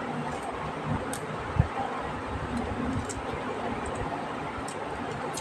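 A small kitchen knife trimming and peeling a kohlrabi held in the hand: a few faint clicks and one soft thump about a second and a half in, over a steady hiss.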